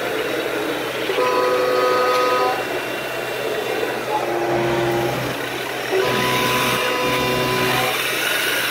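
RC wheel loader's electronic engine sound running with a steady drone. Sustained horn-like tones sound three times over it, the middle one at a lower pitch.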